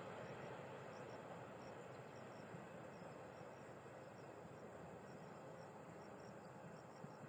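Faint rumble of a passenger train moving away, fading slightly, under insects chirping in a steady pulse of about four chirps a second.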